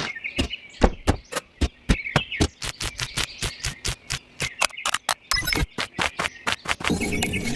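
A rapid, uneven run of sharp clicks and taps, about four or five a second, with faint high squeaks between them, like a small mechanism being worked by hand.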